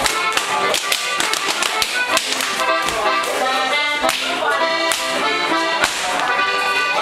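Accordion playing a lively folk dance tune, with many sharp slaps and stamps from Schuhplattler dancers cutting through the music.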